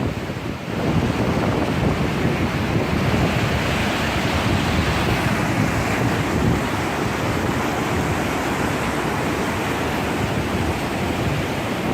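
Waterfall rushing, a steady loud roar of falling water, with wind buffeting the microphone.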